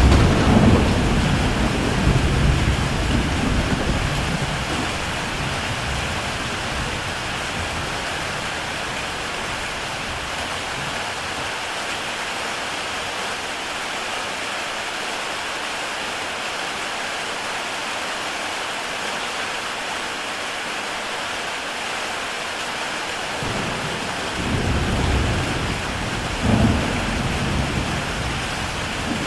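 Heavy rain falling steadily on a tile roof, with a deep roll of thunder at the start that fades over a few seconds, and a second rumble of thunder near the end.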